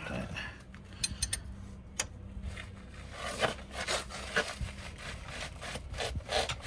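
Hand tools working on front wheel hub bolts: a few sharp metallic clicks and short bursts of scraping and rubbing, over a steady low hum.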